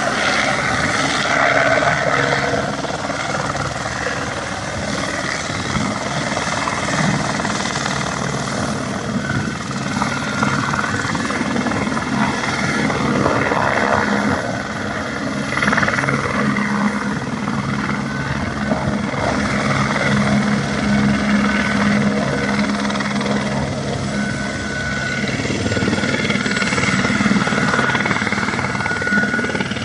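Helicopter running steadily: a continuous rotor and engine noise with a low hum that holds at one pitch.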